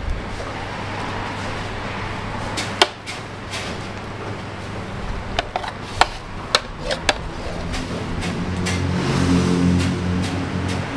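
Busy street-stall ambience: a steady low hum with a few sharp clicks and knocks. In the last few seconds a vehicle engine grows louder as it approaches.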